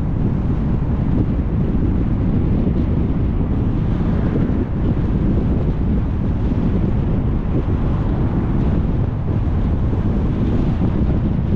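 Steady low rumble of wind buffeting the microphone of a camera mounted on the front of a moving car, mixed with the car's road and tyre noise.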